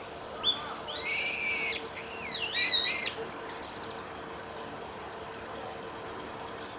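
A bird calling: a short high note, then two loud calls with gliding, nasal-sounding pitch a little over a second in, followed about a second and a half later by three faint, very high notes.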